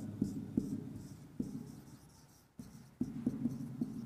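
Marker writing on a whiteboard: a run of short scratchy strokes and light taps, pausing briefly about two seconds in before the strokes resume.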